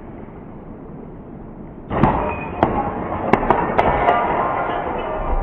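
Sharp cracks of BB gun shots and pellets striking CRT picture-tube glass, about five in quick succession starting about two seconds in, with glass clinking after them.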